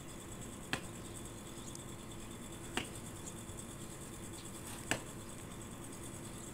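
Quiet outdoor ambience with a faint, steady high chirping of insects, broken by three sharp taps about two seconds apart.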